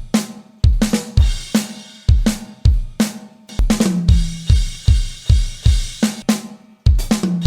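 Drum kit playing a steady beat, kick drum and snare hitting about twice a second with hi-hat and cymbals ringing over them.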